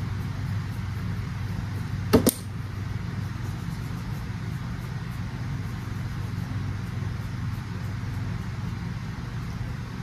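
Steady low mechanical hum in a small room, with one sharp knock about two seconds in.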